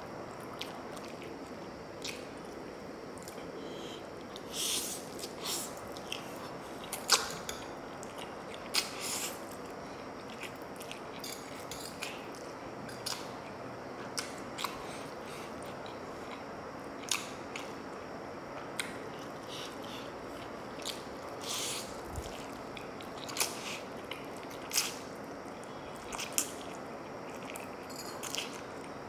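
Close-miked eating of instant noodles: wet chewing and slurping in short, irregular bursts over a steady background hiss.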